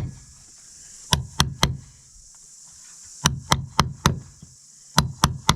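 Caulking mallet striking a caulking iron, driving caulking fibre into the seams of a wooden boat hull: sharp knocks in quick runs of three or four, about ten blows in all.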